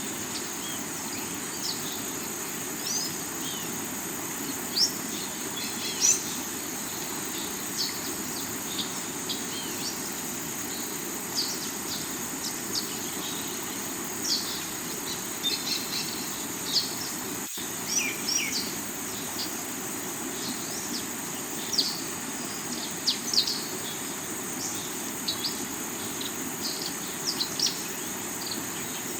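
Water rushing steadily over river rocks, with many short bird chirps and tweets scattered through it. A constant high insect drone, like crickets or cicadas, runs underneath.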